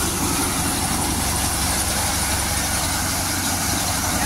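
Mahindra tractor engine running steadily under load, driving a wheat thresher through its PTO. The engine and the threshing machine make one continuous, even machine noise.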